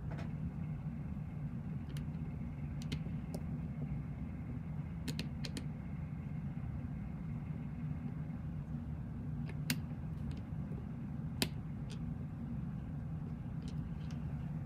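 Light, scattered clicks as a precision screwdriver works the small screws of a DJI Spark drone's front-facing sensor, with the sharpest two clicks about ten and eleven and a half seconds in, over a steady low hum.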